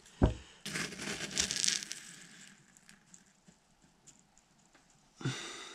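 Shot pellets scooped from a plastic tub with an adjustable shot dipper: a single knock, then about two seconds of pellets rattling and crackling against each other, and another short rattle near the end.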